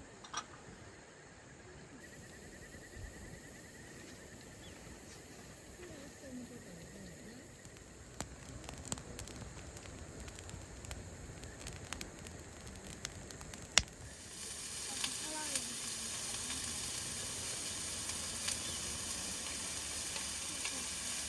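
Food sizzling in a hot pan. The sizzle starts suddenly with a sharp clack about two-thirds of the way through, as if food went into the pan, and then hisses steadily with a few small clicks.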